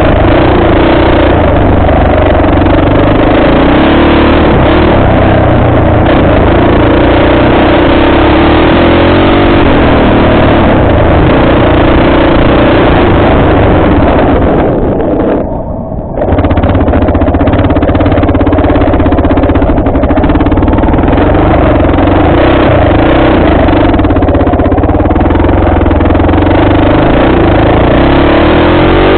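Off-road vehicle's engine running under throttle as it rides a dirt trail. About fifteen seconds in the engine briefly drops off, then picks up again.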